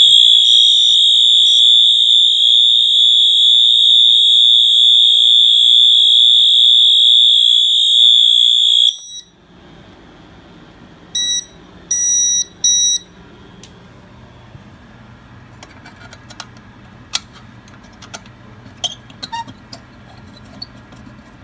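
System Sensor MT multitone fire alarm horn on high-volume continuous, sounding one steady, very loud, high-pitched tone for about nine seconds, then cutting off. A couple of seconds later come three short beeps, then a faint low hum with scattered clicks.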